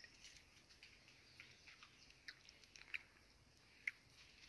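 Near silence: faint outdoor background with a few soft, brief clicks.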